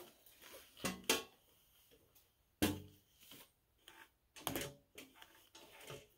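Several separate knocks and clunks, the loudest about a second and two and a half seconds in: shoes setting down on a diamond-plate metal floor pan and working the foot pedals of a trike frame.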